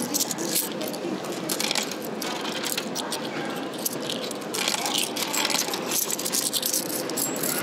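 Japanese yen coins clinking in a palm and being fed one after another into a vending machine's coin slot, dropping into the coin mechanism with repeated small metallic clicks and rattles.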